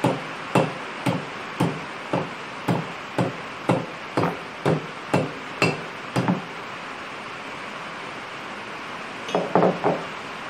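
Small ball-peen hammer tapping head-gasket material against the edge of an engine part to cut the gasket by hand: even taps about two a second for about six seconds, then a quick run of three or four taps near the end.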